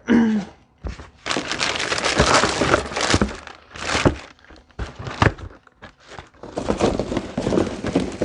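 Packaging crinkling and rustling as it is handled during unboxing, in several separate bursts.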